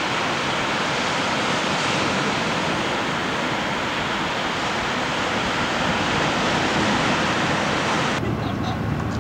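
Ocean surf breaking on the shore, with wind on the camcorder microphone: a steady rushing noise. About 8 seconds in it cuts off abruptly and gives way to a low hum.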